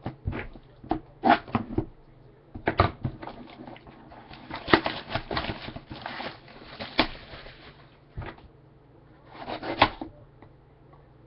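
A sealed box of trading cards being handled and opened: rustling and crinkling of its wrapping, with clicks and knocks of the cardboard box.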